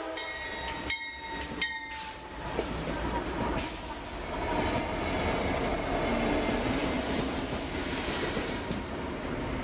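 A light-engine consist of four diesel-electric freight locomotives (GE D9-40CW, GE ES44AC and EMD SD70ACe units) rolling past close by, with no cars behind. Engines rumble, and the wheels clack sharply over rail joints a couple of times about one to two seconds in.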